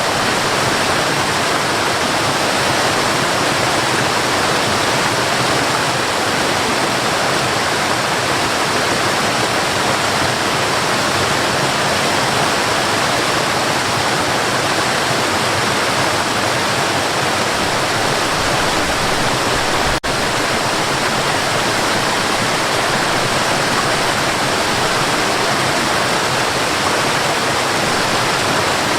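Mountain river rushing over rocks: a steady, full sound of running water, with one brief click about twenty seconds in.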